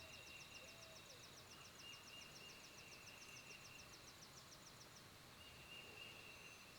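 Faint outdoor quiet with a distant songbird's high, rapid trill, about seven notes a second, that stops about five seconds in.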